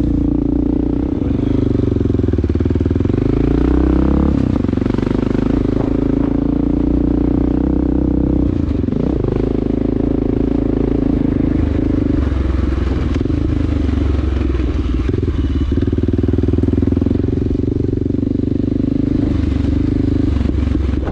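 Honda XR650L's single-cylinder four-stroke engine breathing through a Big Gun slip-on exhaust, running under load while riding a dirt trail. Its pitch climbs over the first few seconds, drops about four seconds in, then holds fairly steady with small rises and falls as the throttle is worked.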